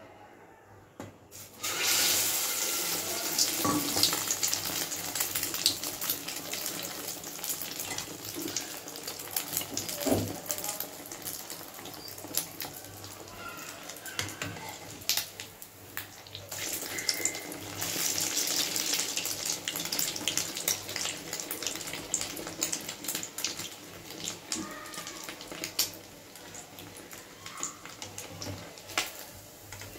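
Egg-coated bread slice deep-frying in hot oil in an aluminium kadai: a dense sizzle full of crackles that starts suddenly about two seconds in as the slice goes into the oil, with a few sharp clicks along the way.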